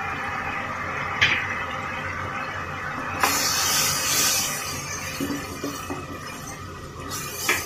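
Broth bubbling in a wok while a plastic ladle stirs in a block of frozen coconut milk, with a steady hiss and sloshing throughout. The ladle knocks against the pan about a second in, around three seconds in and near the end, each time with a louder splashing stir.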